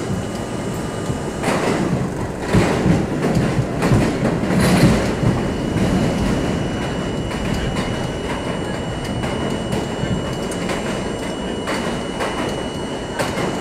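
New York City subway C train running through a tunnel: wheels rumbling and clattering over the rails, loudest a few seconds in, with a thin steady high whine throughout.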